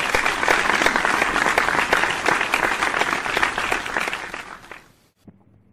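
Recorded applause: a crowd clapping, fading out about five seconds in, as praise for a correctly counted answer.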